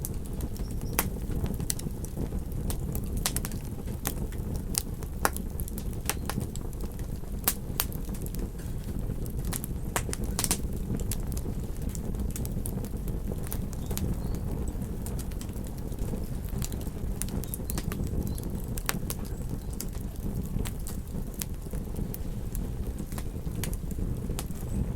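Campfire crackling, with frequent sharp irregular pops and snaps over a steady low rumble of wind and surf.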